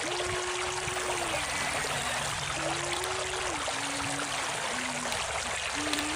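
Steady rush of flowing river water, with the small electric motor of a Huina RC excavator humming in short on-off spells of up to about a second, its pitch stepping slightly.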